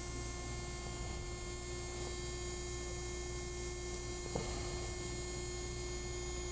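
Faint steady electrical hum with one light click about four and a half seconds in.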